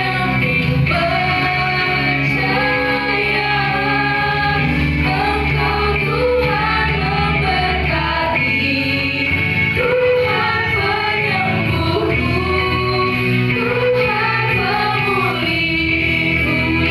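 Christian worship song: voices singing a melody together over a band backing, continuous throughout.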